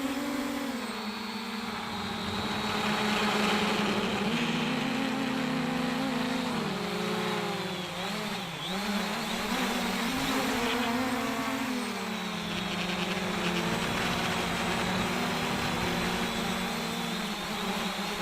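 Quadcopter's brushless motors and propellers humming in flight, picked up by the camera mounted on the drone. The pitch rises and falls repeatedly as the throttle changes.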